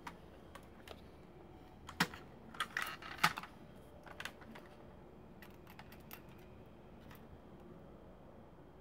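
Hard plastic parts of a vintage Powermaster Optimus Prime Transformers toy clicking and knocking as it is handled and turned over, with a burst of louder clicks and rattles about two to three seconds in and scattered single clicks after.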